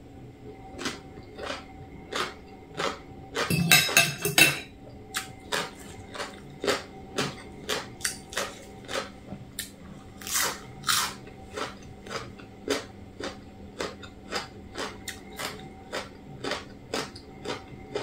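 A person chewing mouthfuls of crunchy som tam (shredded green papaya salad) close to the microphone, short crisp crunches about two a second. A louder, denser cluster of crunching comes about four seconds in.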